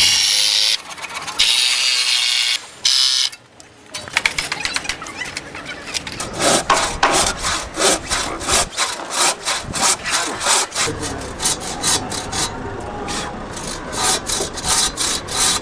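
Hand saw cutting through timber. A few long, loud strokes open it, then after a short pause comes a fast, steady run of back-and-forth strokes.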